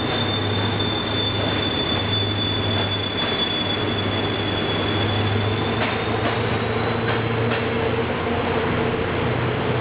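Intercity passenger coaches rolling past along a station platform, with a steady high-pitched wheel squeal over the rumble of the wheels. The squeal fades out about six seconds in, and a few clicks of wheels over rail joints follow.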